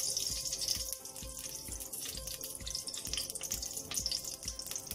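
Ghee sizzling in a hot pressure cooker pan as it heats, a steady crackling hiss. Soft background music with a low beat underneath.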